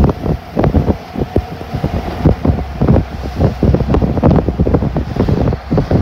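Wind buffeting a phone microphone in a moving car, in rapid irregular gusts, over a steady low road rumble.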